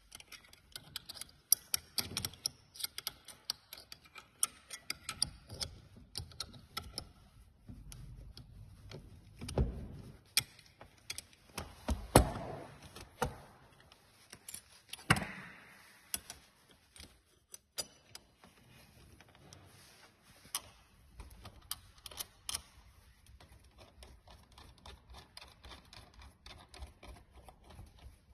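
Irregular clicking and clinking of hand tools and small metal parts being worked on a sim-racing brake pedal during a load cell swap, with a few louder knocks along the way.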